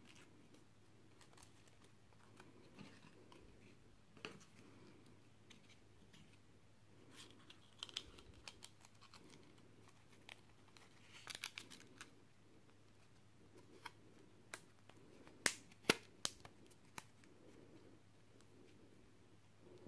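Faint handling sounds of a turkey-feather fletch and a wooden fletching-jig clamp being worked by hand: soft rustling with scattered light clicks, the two sharpest about three-quarters of the way through.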